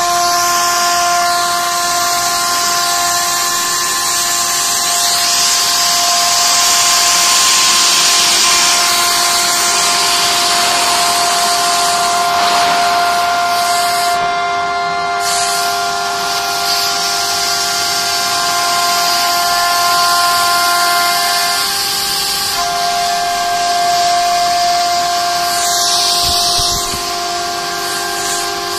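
CNC router spindle whining at a steady pitch while the bit cuts aluminium composite panel, over a high hiss. The hiss thins briefly about halfway through, and the main tone drops out for about a second some seconds later.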